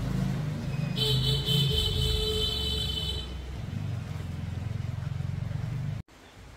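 A vehicle's engine running with a steady low rumble, with a high, thin tone over it from about one to three seconds in. The sound drops off abruptly near the end.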